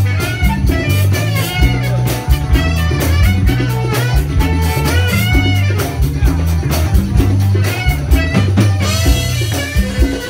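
Live band playing an upbeat disco-funk groove: a steady bass line and drum kit under an alto saxophone melody.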